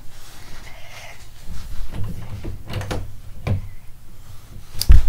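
Wooden closet door being handled and pushed shut, with a few soft knocks and bumps, then a sharp thud as it closes near the end.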